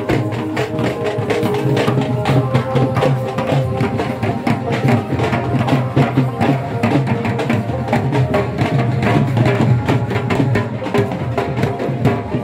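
Loud music with a fast, steady drum beat.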